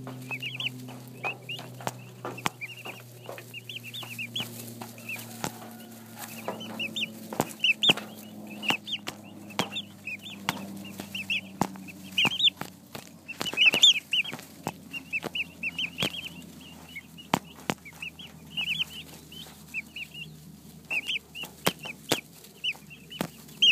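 A brood of turkey poults peeping: many short, high chirps, several birds at once. Sharp taps are mixed in as the poults peck at the camera lens.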